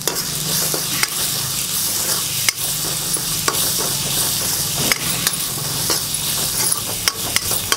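Peas and ground spices sizzling in hot oil in an iron kadai while a steel ladle stirs them, with sharp scrapes and knocks of the ladle against the pan several times. This is masala being fried before tomatoes and water go in.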